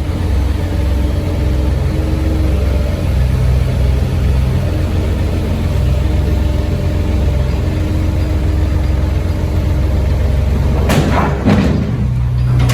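Heavy machinery engine running steadily at a low pitch, with a short louder noise near the end.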